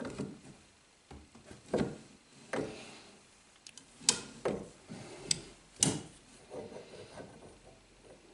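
Steel parts knocking and clinking against a steel base plate as a pin and a workpiece are handled and set in place under a small homemade arbor press. There are about seven sharp knocks at irregular intervals, with light scraping between them.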